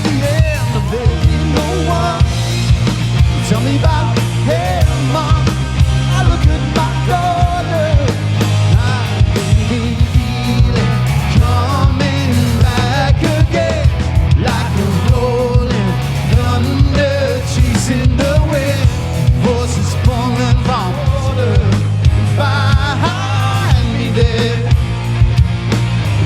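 Rock band playing: drums, bass and electric guitar, with a sung vocal line.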